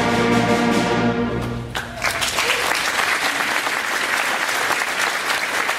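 School concert band of brass and woodwinds holding its final chord, which cuts off a little under two seconds in, followed by audience applause.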